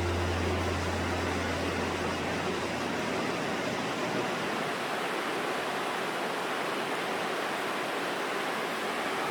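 Steady rushing of the Virgin River's water. A low hum underneath fades out over the first three seconds.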